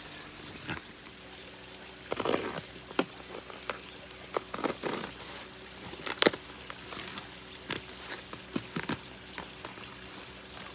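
Cardboard box being torn open by hand: packing tape ripping and cardboard flaps rustling, in scattered short crackles and clicks, with a sharp snap just past six seconds in.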